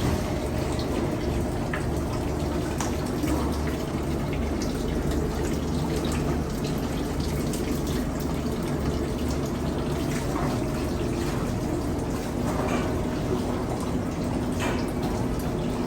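Water running steadily in a kitchen drain manhole as the clogged pipe is cleared, with a few faint clicks.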